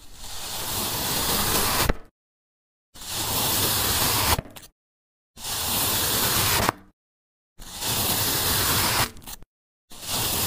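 A long knife slicing down through a dense orange block, five separate cuts. Each cut is a rough, even scraping noise lasting about one and a half to two seconds, with dead silence between them.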